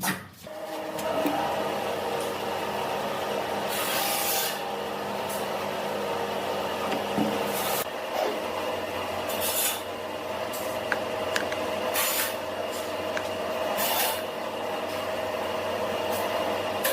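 Woodturning lathe running with a steady motor hum while a turning tool scrapes and cuts the spinning workpiece, with louder rasping passes every second or two.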